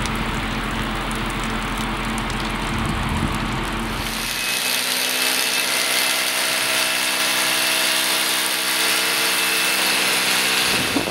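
A steady rushing noise with a low hum, then from about four seconds in an electric power tool running steadily with a high whine and hiss.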